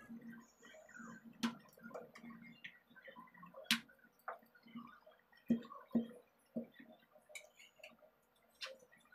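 Wooden rolling pin rolling out dough on a wooden board: faint, irregular light knocks and clicks as the pin rocks and taps against the board, with a few sharper taps.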